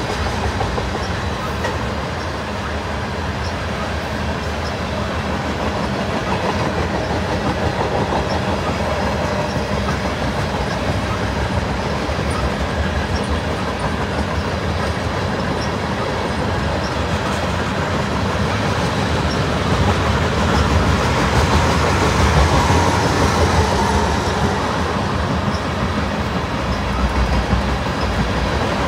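Freight cars of a long mixed train, tank cars and covered hoppers, rolling past in a steady rumble with a clatter of wheels over the rail. It grows a little louder about twenty seconds in.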